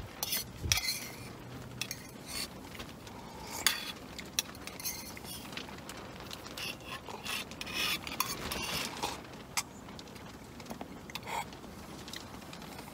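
A utensil scraping and clinking in a small camping cook pot as someone eats from it: scattered clicks and short scrapes, busiest in the first ten seconds.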